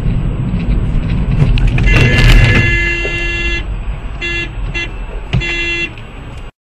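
A car horn blares over the heavy low rumble of a vehicle on the road. It holds for over a second, then gives two short toots and one longer one, and the sound cuts off suddenly near the end.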